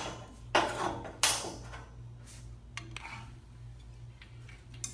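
Metal parts of a garage door opener's hanger bracket clanking as they are handled and fitted: two sharp clanks with a short ring in the first second and a half, then a few lighter clicks.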